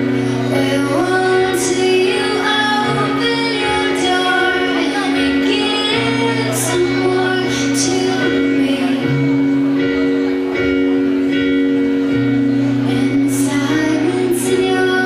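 Live band playing a slow ballad: a woman sings lead over long held chords, with a bass note that moves about every three seconds and a few cymbal crashes.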